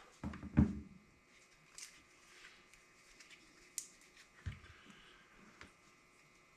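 Small parts and tools being handled on a workbench: a few low knocks about half a second in, the loudest, then scattered light clicks and taps.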